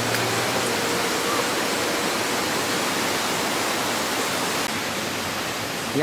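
Waterfall rushing steadily, an even wash of falling water across all pitches, easing a little near the end.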